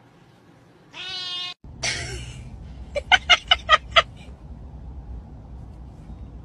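A domestic cat gives one meow of about half a second. After a cut, a car's low steady hum runs underneath while someone laughs in a quick run of about six short "ha"s.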